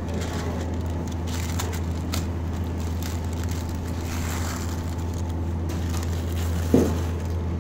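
Clear plastic rhinestone transfer film crackling and crinkling as it is peeled off fabric and crumpled by hand, over a steady low hum. A single thump near the end.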